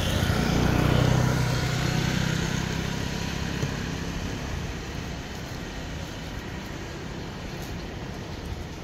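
A motor vehicle's engine rumble, loudest about a second in and then fading away over the next few seconds as it passes, leaving a fainter steady hum.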